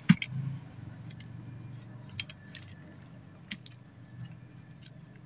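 Plastic-and-metal tripod stand being handled and opened by hand: its legs and fittings knock and click, with one sharp click right at the start and a few more about two and three and a half seconds in.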